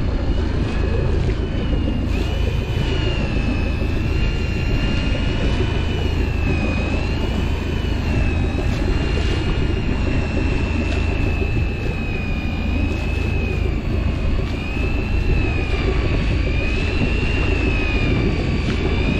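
Electric fishing reel's motor whining as it winds line up from deep water, its pitch wavering slowly up and down with the load of a hooked fish, over a steady low rumble of the boat.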